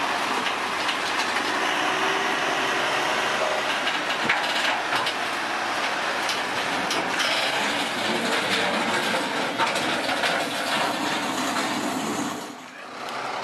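Terex all-terrain mobile crane's diesel engine running under load as it climbs the steel ramps onto a lowboy trailer, with repeated clanks and knocks from the ramps and trailer deck. The noise drops away briefly near the end.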